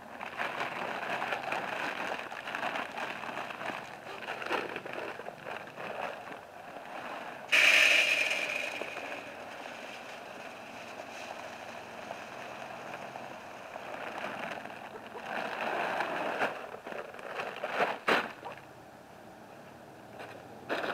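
Plastic feed bags rustling and chicken feed being poured into a galvanized metal feeder, with a sudden loud clatter about seven seconds in and a sharp click near the end.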